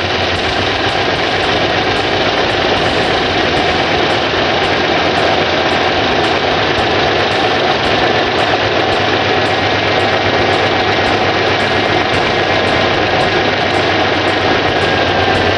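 A 2002 Dodge V8 idling roughly just after start-up. It is misfiring on cylinders 3, 5 and 7, which the owner believes is a head gasket leak letting coolant into the cylinders. It definitely doesn't sound good.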